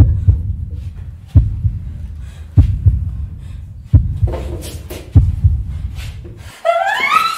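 Slow heartbeat sound effect: a deep double thud about every second and a quarter. It stops near the end, where a voice rises sharply in pitch.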